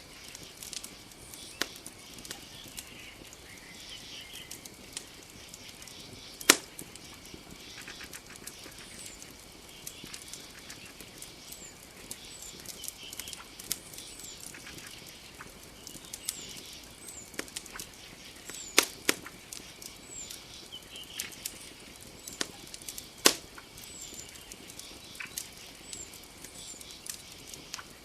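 Wood campfire crackling with scattered sharp pops, three of them much louder than the rest. Under it runs a steady high-pitched drone, and short, very high chirps come again and again.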